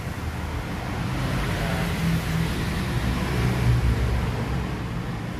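Steady low rumble of road traffic, with engines droning as vehicles pass.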